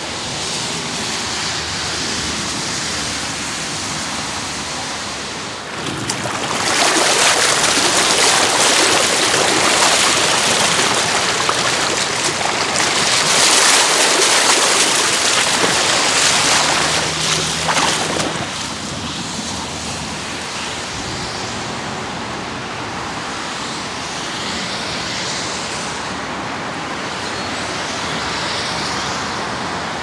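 Muddy floodwater rushing over the ground after a storm, a steady rush of water that grows louder for a stretch in the middle.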